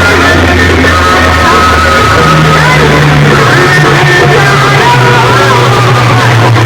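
Very loud music played through large DJ sound-box speaker rigs, with heavy sustained bass notes that step up in pitch about two seconds in and a wavering melody above.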